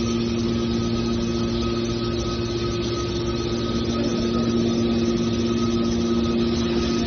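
Hydraulic mobile scrap car baler's power unit running steadily: an even engine drone with a few held humming tones.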